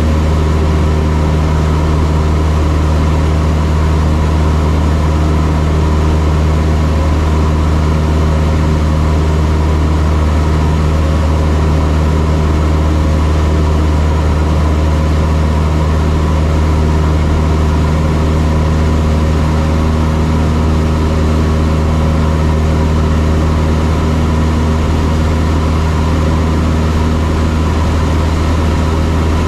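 Single-engine Cessna's piston engine and propeller running at a steady, even drone, heard from inside the cockpit.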